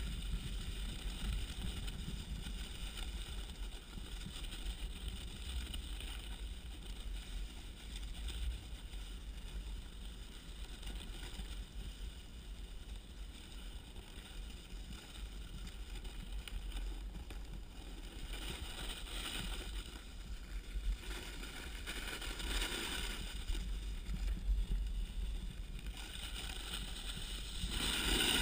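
Snowboard sliding down a packed-snow trail, with a low wind rumble on the body-mounted action camera's microphone and the board's edge hissing over the snow. The hiss grows louder in swishes a few times, loudest near the end.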